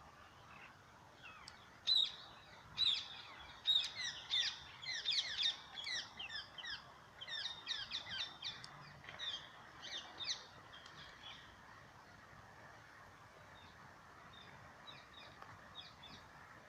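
Songbirds chirping: a busy run of many short, quick chirps over the first ten seconds or so, thinning to a few faint chirps near the end, over a steady background hiss.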